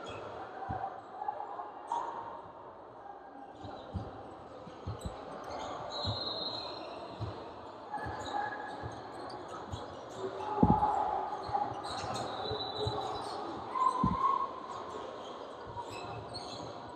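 Basketball dribbled on a hardwood court, irregular bounces with two louder thuds past the middle, and short sneaker squeaks on the floor with players' voices in the gym.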